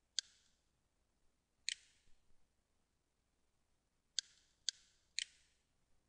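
Computer mouse button clicking five times: once just after the start, once about a second and a half in, then three quick clicks about half a second apart in the last two seconds, the last one a right-click that opens the desktop menu.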